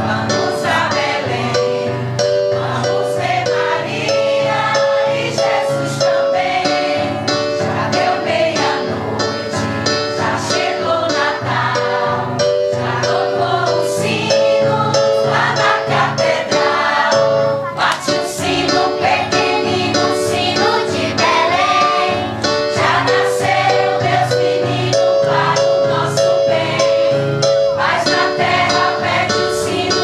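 Christmas choir singing a carol over instrumental backing, with low notes pulsing steadily beneath the voices.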